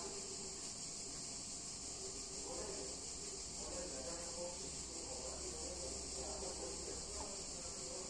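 A steady, high-pitched chorus of insects drones on without a break at a low level.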